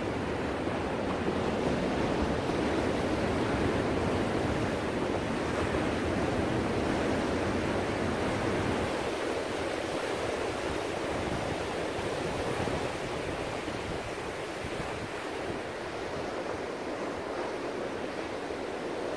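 Ocean surf: waves breaking and washing up a beach in a continuous rush. It is heavier and deeper for the first half, then eases to a lighter wash about halfway through.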